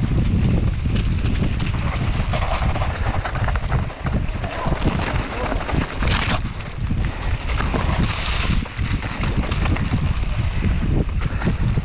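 Wind buffeting the microphone over the rumble and rattle of a mountain bike riding a dirt singletrack trail, with two brief hissing scrapes about six and eight seconds in.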